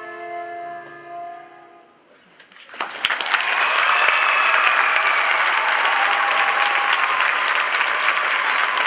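Dance music with long held notes fades out, and about three seconds in an audience breaks into loud, sustained applause.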